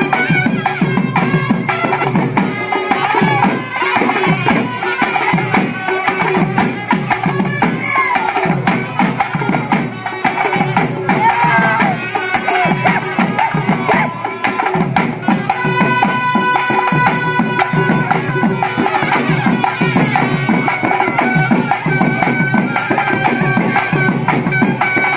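Loud folk drumming for dancing: fast, driving beats on hand-held frame drums, with a wind instrument holding steady high notes over them.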